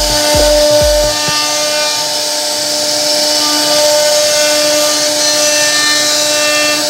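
CNC router spindle running and cutting into a wooden panel: a steady whine with a hiss of cutting. A low repeating thud, about three a second, stops about a second in.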